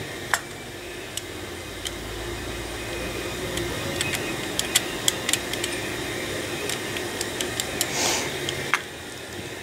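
Small metal clicks and taps of a screwdriver working small screws into a Corvair distributor, over a steady hum that stops abruptly near the end.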